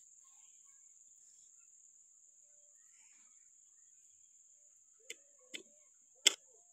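Crickets chirring steadily and faintly at night. Three short, sharp taps or knocks come near the end, the last the loudest.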